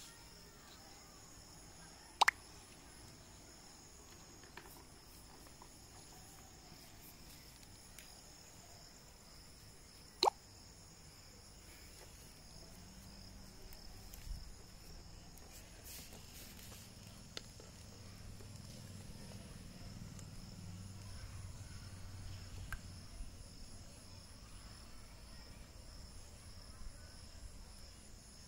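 Crickets chirping steadily in a continuous high chorus, with two sharp plop-like clicks, one about two seconds in and one about ten seconds in, and a faint low rumble through the middle.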